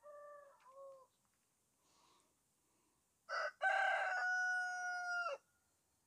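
A rooster crowing once, about three seconds in: a short first note, then a long held note lasting nearly two seconds that cuts off sharply. A few faint short calls come in the first second.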